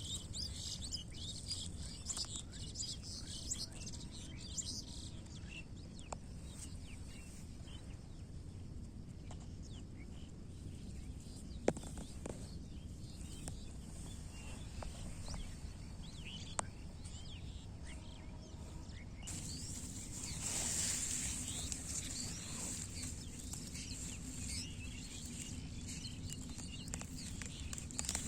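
Outdoor field ambience with many birds chirping, busiest near the start and again over the last third, over a low steady background noise. A few sharp clicks stand out, one a little before the middle and another about two thirds of the way in.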